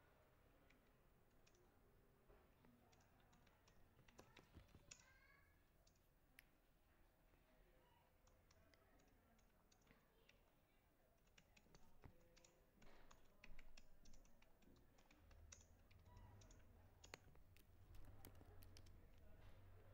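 Faint computer keyboard typing: scattered, irregular key clicks over near silence, with a faint low hum coming in during the second half.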